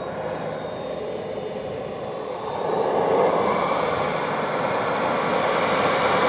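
RC model jet's turbine engine running with a high whine over a rushing exhaust. About two and a half seconds in, the whine rises in pitch and the sound grows louder as the turbine spools up.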